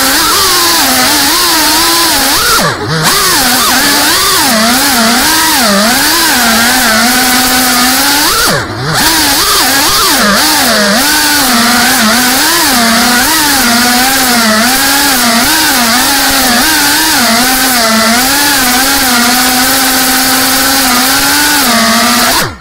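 FPV quadcopter's brushless motors and propellers whining, the pitch rising and falling constantly with the throttle over a steady hiss of prop wash. The throttle drops away briefly about 3 s and 9 s in, and the sound cuts off suddenly at the end.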